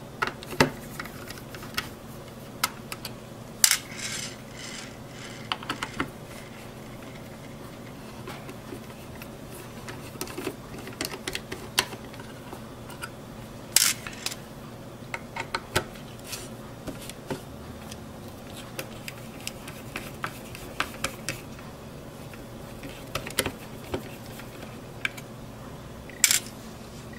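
Small Phillips screwdriver working tiny screws out of a graphics card's heatsink assembly. Scattered light clicks and small metallic clinks come from the tools and screws against the metal and the desk, with three louder clinks spread through it.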